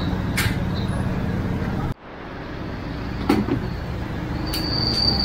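Steady vehicle road noise that cuts off abruptly about two seconds in and then builds back up. A few sharp clicks are scattered through it, and a high steady whine comes in near the end.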